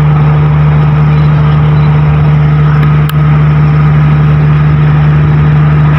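Diesel engine of a train standing at the platform, running with a loud, steady low drone; a brief click about three seconds in.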